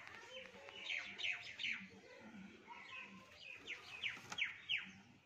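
Bird calling outdoors: quick runs of three or four falling chirps, one run about a second in and another near the end.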